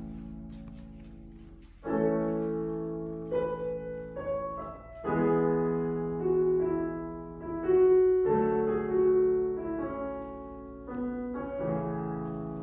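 Digital piano played slowly: sustained chords struck about every three seconds, with a simple melody of single notes over them, each chord left to ring and fade.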